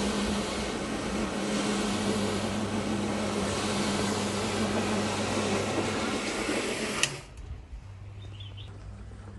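Electric brush carpet-scrubbing machine running steadily, its motor and brushes working through a wet, foamy rug. It cuts off abruptly about seven seconds in, leaving a faint low hum.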